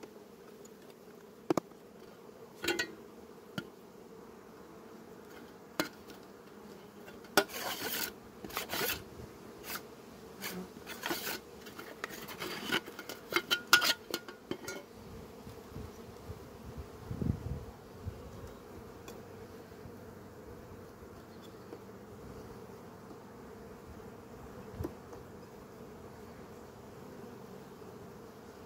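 Honeybees humming steadily around an open hive. Over the first half, a hive tool and a metal double comb pocket clack and scrape against the wooden frames as the pocket is pried up and lifted out. A single low thud comes a little after.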